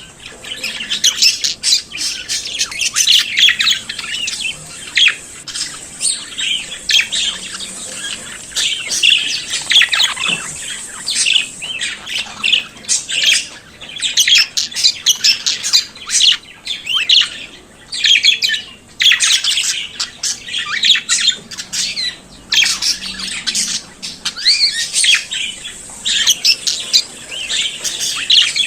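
Budgerigars chattering and warbling continuously, a dense stream of chirps, whistles and squawks with a brief lull near the middle.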